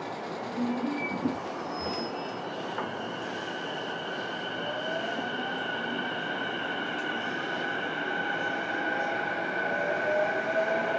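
JR East E233-series electric train heard from inside a motor car: rolling noise with a steady high whine, and the traction motor tone gliding upward twice as the train picks up speed, growing louder toward the end.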